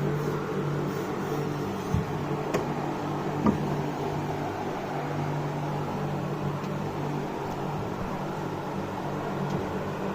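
Microwave oven running with a steady hum, with a few light clicks about two to three and a half seconds in.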